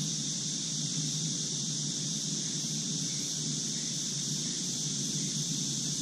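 Steady outdoor background noise: a continuous high hiss over a low rumble, with no distinct bird calls standing out.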